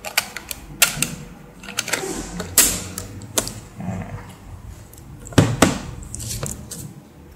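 Plastic clicks and knocks from handling an Extech SD700 datalogger's case after fitting its batteries: the battery cover is closed and the unit is turned over and set down on a table. The sharp clicks come irregularly, about half a dozen, the loudest about five and a half seconds in.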